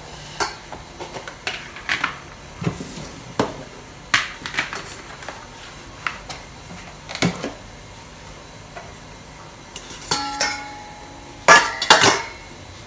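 Kitchenware being set down and shifted on a tiled counter: a plastic food container, a ceramic bowl and a stainless-steel colander, giving scattered knocks and clinks. Near the end a louder metallic clink rings on briefly as the stainless-steel colander is moved.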